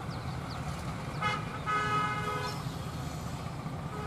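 Bangladesh Railway diesel locomotive sounding its horn twice, a short toot and then a longer blast of almost a second, over the steady low rumble of its engine as it approaches.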